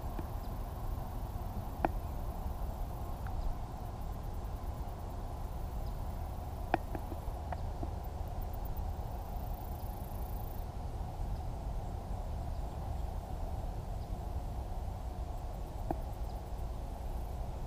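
Outdoor ambience: a steady low rumble with a steady mid-pitched hiss, broken by a few sharp clicks about two, seven and sixteen seconds in.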